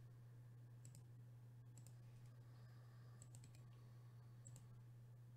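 A few faint, separate computer mouse clicks over a low steady hum; otherwise near silence.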